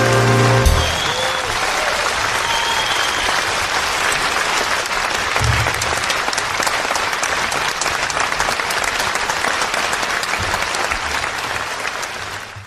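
An orchestra's final held chord stops about half a second in, and a large concert audience breaks into sustained applause.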